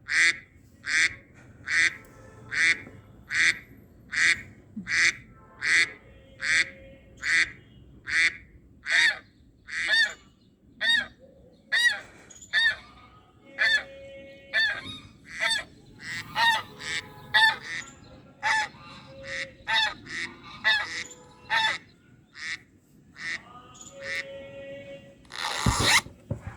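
Goose honking: a long run of short honks, about one every 0.8 seconds, some rising and falling in pitch. A loud rushing burst comes near the end.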